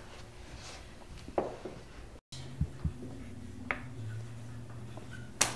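Quiet classroom room tone with a few short squeaks and soft taps of a marker writing on a whiteboard, and a low steady hum after a cut about two seconds in. One sharp snap near the end is the loudest sound.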